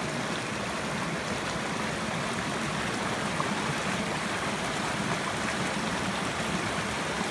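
Small mountain creek rushing steadily over rocks and a little cascade, a continuous even rush of water.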